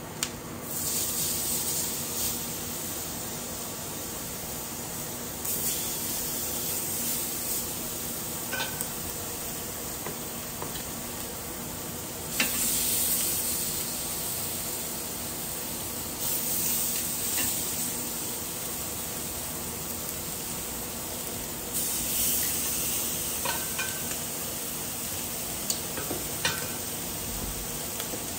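Chicken pieces sizzling on a hot ridged grill pan. The sizzle flares up loudly about five times as each new piece is laid down, then settles to a steady hiss. A few light metal clicks of the tongs sound along the way.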